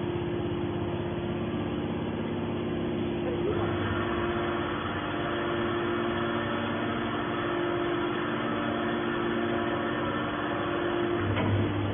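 Hydraulic scrap metal baler running: a steady machine hum with a constant tone, joined about three and a half seconds in by a higher whine.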